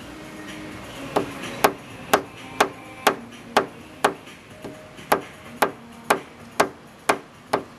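Paintless dent repair tapping: a small hammer striking a tap-down tool on the car panel in sharp, even taps about two a second, with a short pause around the middle.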